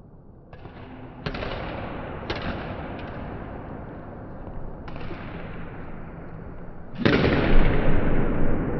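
Badminton rackets striking a shuttlecock, together with footfalls on the court, in an echoing sports hall: about six sharp hits, each ringing out and fading slowly. The loudest and deepest comes about seven seconds in.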